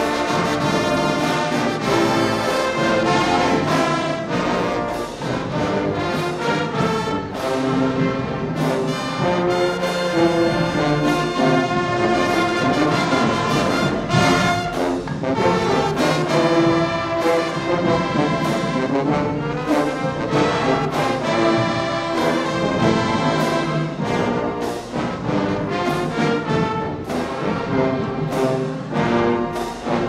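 Show-style high school marching band playing full out: a brass-heavy tune over a steady, driving drum beat with cymbal crashes.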